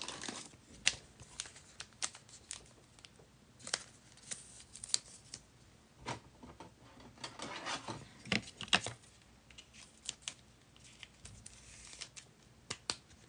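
A trading card being handled and fitted into a clear plastic card holder: scattered light clicks and plastic rustles, with a longer crinkly rustle about seven to nine seconds in.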